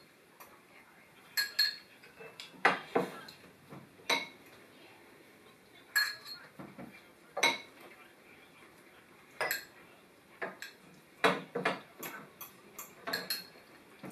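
Metal fork and spoon clinking against ceramic bowls while eating, in irregular sharp clinks that ring briefly, about one a second.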